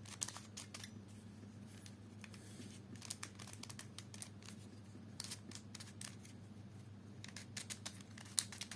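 Faint irregular plastic clicks and clacks in small clusters from an oddly shaped puzzle cube being turned and handled in the hands, over a faint steady low hum.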